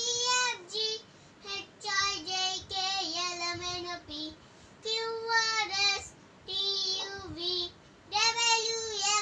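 A young girl singing a rhyme alone and unaccompanied, in short phrases with brief pauses between them.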